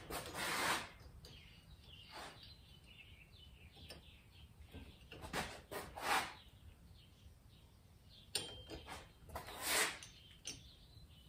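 Blacksmith's tongs squeezing the petals of a forged metal tulip, giving a few short, faint metallic scrapes and clinks spread a few seconds apart.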